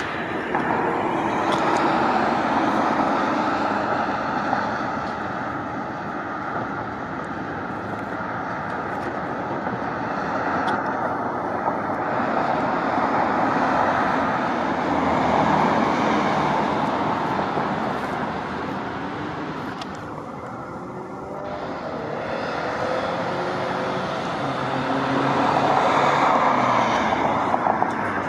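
Road traffic: cars passing one after another on a busy street, the noise swelling and fading in several long waves.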